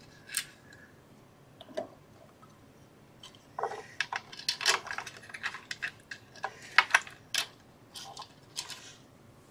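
Light metallic clicks and clinks of small screws being handled and pushed through a stepper motor mount. They are irregular: a few isolated ones at first, then a busier run from about three and a half seconds in.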